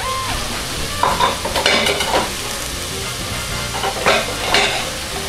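Chicken and vegetables sizzling in butter in a stainless pot on the stove, a steady frying hiss, with a few short clatters of kitchen utensils or dishes.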